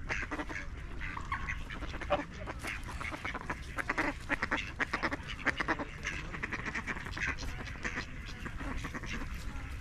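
Ducks quacking, with many short calls throughout and a quick run of quacks in the middle.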